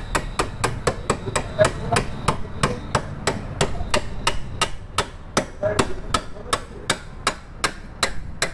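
Hammer tapping on metal in a steady rhythm, about four light strikes a second, during refitting of a motorcycle wheel.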